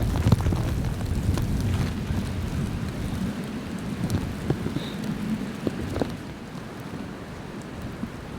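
Blizzard wind blowing on the microphone as a low rumble, with scattered light ticks. It eases somewhat near the end.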